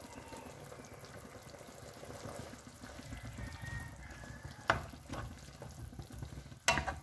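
Syrupy mixture of dried fruit, tea, molasses sugar and butter heating in a nonstick pan, faintly bubbling as it starts to boil, with a few sharp clicks in the second half.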